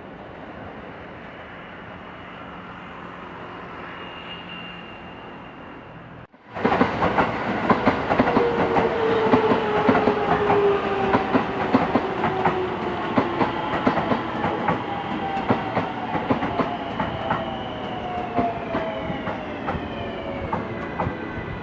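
An electric train rolling through the station. Its wheels click rapidly over the rail joints, and its motor whine slowly falls in pitch as the train brakes. About six seconds in, a quieter steady rumble gives way abruptly to this much louder train sound.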